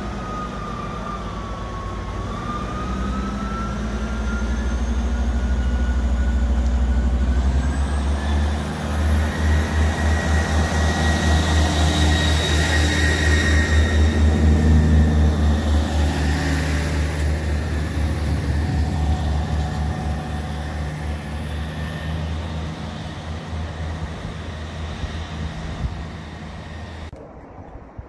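Trains at a station platform. A diesel multiple unit's engines drone steadily, then a Great Western Railway Intercity Express Train passes with a pulsing low rumble and a whine that rises in pitch, loudest about halfway through. The sound drops off abruptly near the end.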